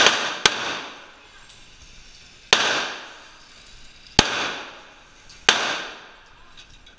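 Semi-automatic handgun fired five times, each shot a sharp crack followed by a long echo in an indoor range. The first two come about half a second apart, and the rest follow at irregular gaps of one and a half to two seconds.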